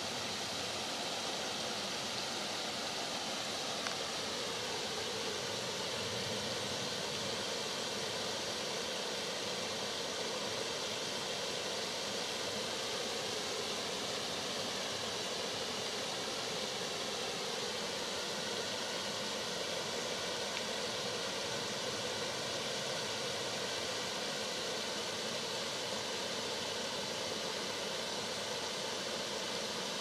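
Small forest brook flowing steadily.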